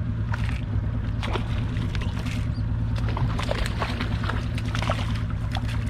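Boat engine idling with a steady low hum, with many short, sharp clicks and scratchy sounds scattered over it, thickest in the second half.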